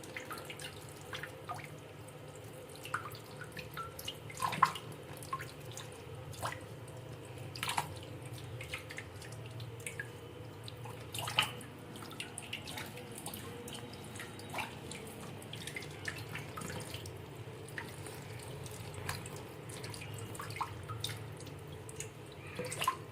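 Tap water running into a sink while basak (Malabar nut) leaves are rubbed and rinsed under the stream by hand: a steady rush of water with irregular drips and splashes, a few louder ones about four and a half and eleven seconds in.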